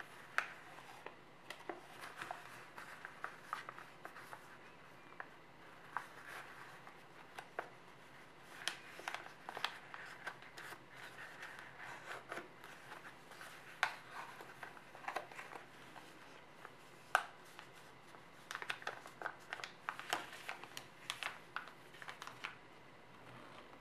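A sheet of origami paper being folded and creased by hand: faint, irregular crinkles and crackles in clusters, with a few sharper snaps of stiff paper.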